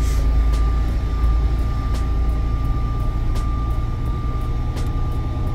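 Semi-truck's diesel engine running with a steady low rumble inside the cab, its tyres rolling on a wet, salted road. A thin, steady high whine and scattered light ticks sit over it.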